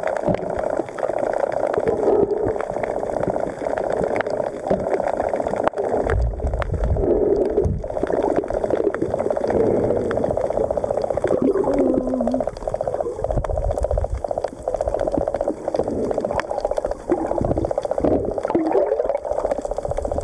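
Underwater sound picked up through a camera housing: muffled water noise and gurgling, with a steady buzzing hum and deep rumbling surges several times.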